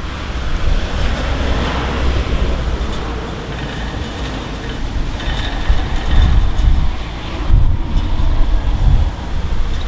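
Gusty wind buffeting the microphone over a continuous low rumble, with a broad swell of noise a second or two in and again around the middle.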